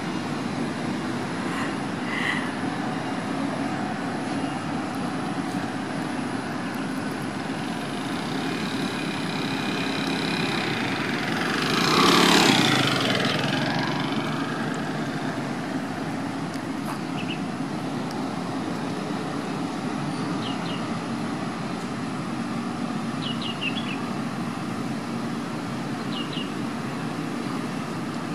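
Steady hum of distant traffic. A vehicle passes, growing louder and fading again over a few seconds about twelve seconds in, and a bird chirps several times in the second half.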